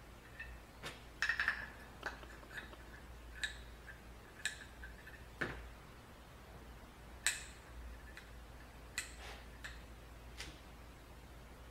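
Irregular light clicks and taps of small metal parts of a battery master switch being handled and fitted together, over a low steady hum.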